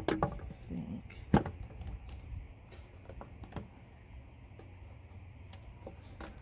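Scattered plastic clicks and knocks as a sealed lead-acid battery block is worked down into a tight-fitting plastic battery case, with one sharp knock about a second and a half in the loudest, over a low steady rumble.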